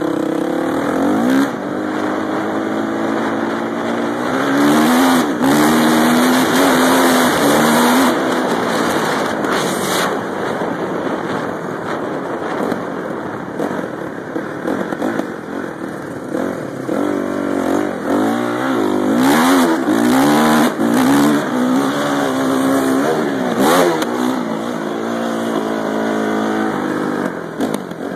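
Motocross bike engine being ridden, revving up and down over and over as it accelerates and shifts, louder in two stretches as it comes near.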